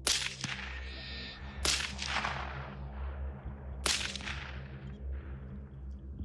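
Three gunshots, about a second and a half and then two seconds apart, each a sharp crack followed by a long fading echo.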